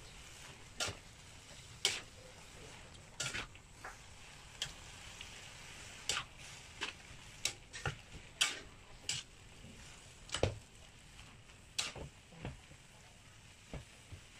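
Food sizzling faintly in a pan, with irregular sharp clicks and knocks of a utensil stirring and tapping against it.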